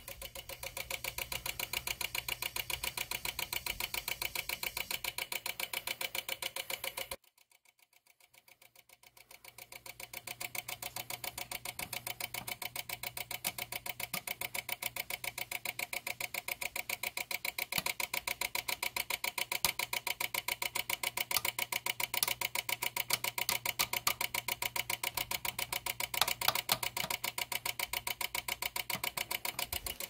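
Failed Lutron HomeWorks Illumination dimmer module chattering with a rapid, even run of clicks, which the service technicians presume is its air-gap relay going nuts. It cuts out about seven seconds in and builds back up within a few seconds.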